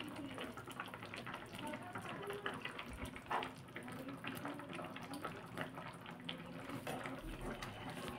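Thick chicken-and-potato curry gravy simmering in a pan, bubbling with a steady run of small pops and crackles, while a slotted metal spoon stirs it. There is a light knock about three seconds in.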